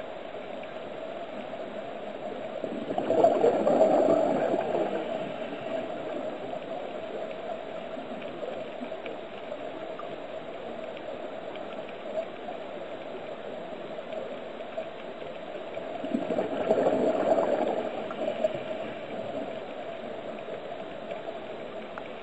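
Underwater recording with a steady hum, broken twice by a scuba diver's exhalation through the regulator: a few seconds of bubbling, about three seconds in and again some thirteen seconds later.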